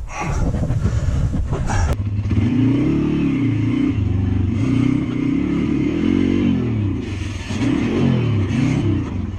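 Welsh Pit Bike's small four-stroke single-cylinder engine revving up and down while being ridden over dirt and logs, its pitch rising and falling every second or so.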